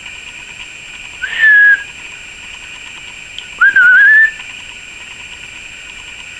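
Two short, loud whistled notes about two seconds apart, the second wavering slightly in pitch, over a steady hiss.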